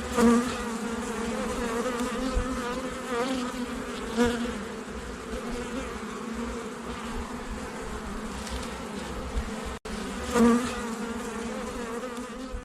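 Honeybees buzzing at a hive in a steady hum, with single bees now and then passing close, their buzz briefly louder and wavering in pitch, about three times.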